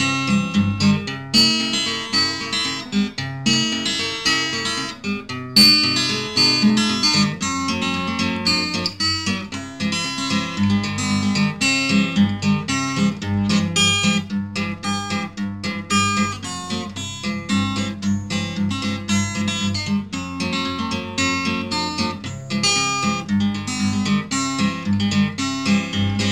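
Background music: acoustic guitar, a steady stream of plucked and strummed notes.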